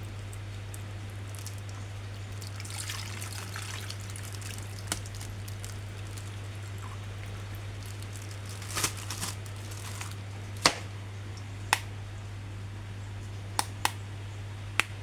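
Plastic action figures and packaging being handled: a soft rustle about three seconds in, then a series of sharp clicks spread through the second half, over a steady low hum.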